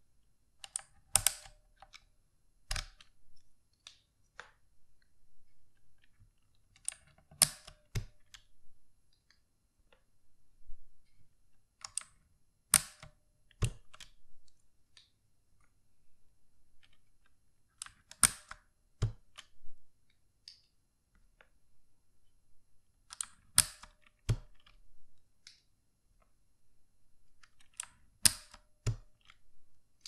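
Keycaps being pulled one at a time with a wire keycap puller from a Redragon Kumara K552 with clicky blue switches. About every five seconds there is a cluster of sharp plastic clicks as a cap snaps off its switch, then a second click under a second later, six times in all.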